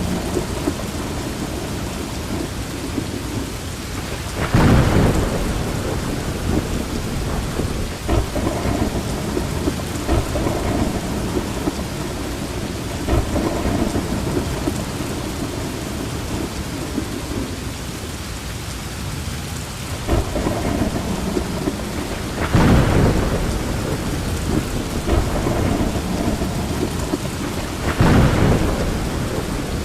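Steady heavy rain with thunder rumbling through it, swelling into louder peals three times: about four seconds in, and twice near the end.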